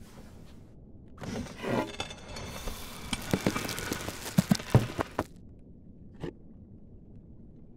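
Rustling with quick light knocks and clicks as vegetables and mushrooms are laid one after another onto a bamboo serving tray. The rustling stops a little past five seconds in, and one soft tap follows about a second later.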